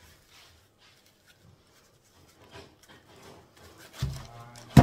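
Faint rustling and small clicks as a dry compressed coco coir brick is handled over a plastic bag. About four seconds in comes a short low sound, then a sharp, loud knock just before the end.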